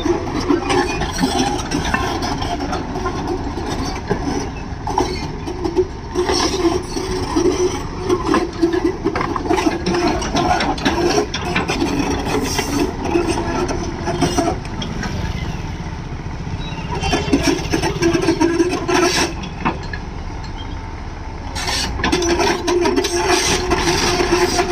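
Tracked excavator's diesel engine running steadily as the machine travels on its steel tracks, with frequent short clanks and knocks throughout.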